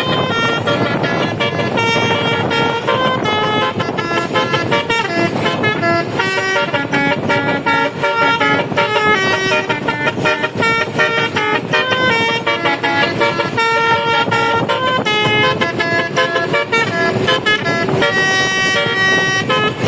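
A bus's telolet Basuri multi-tone horn playing a tune: a rapid run of horn notes, one after another.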